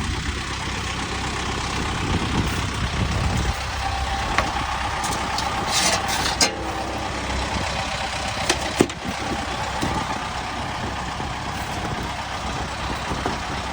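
An engine idling steadily, with a few sharp clicks or knocks, the loudest about six and nine seconds in.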